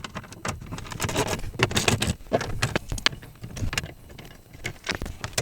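Irregular clicks and metallic clatter of hand tools and small screws being worked out of the plastic glove box and dash trim.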